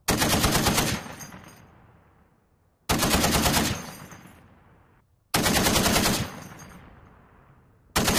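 Browning M2 .50 caliber heavy machine gun firing short bursts of about a second each: three bursts, with a fourth starting right at the end, each dying away in a long echo.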